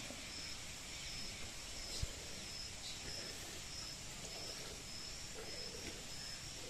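An insect chirping steadily outdoors, short high chirps about one and a half a second, over faint rural background. One sharp knock about two seconds in.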